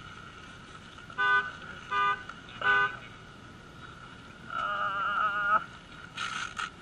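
Emergency vehicle sounding three short horn toots about 0.7 s apart, then a brief wavering siren tone about halfway through, over a steady high whine; a short burst of hiss comes near the end.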